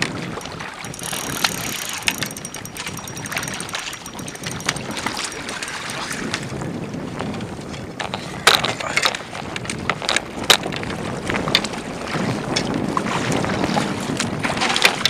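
Wind on the microphone and water around a kayak, with scattered sharp knocks and clicks, the loudest about eight and a half and ten and a half seconds in.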